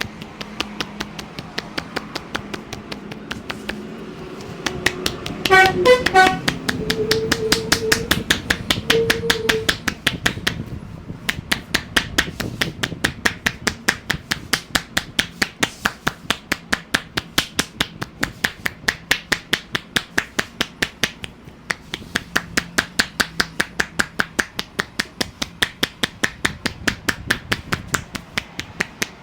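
Rapid, even percussive tapping of hands on a head during a head massage, about five strikes a second, with a few brief pauses. A short horn-like honk sounds about six seconds in.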